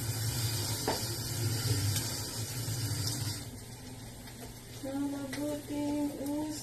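A steady low hum with hiss, like a fan running, cuts off about three and a half seconds in. From about five seconds in, a voice sings a few held notes.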